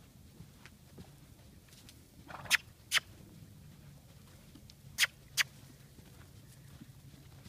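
Two pairs of sharp mouth clicks, each pair about half a second apart, near the middle of the stretch: a person clucking to keep a loose horse trotting.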